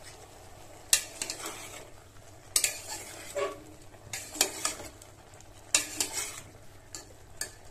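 Metal spoon stirring cooked vegetables in an aluminium pressure cooker, clinking and scraping against the pot's sides in five or so short bouts.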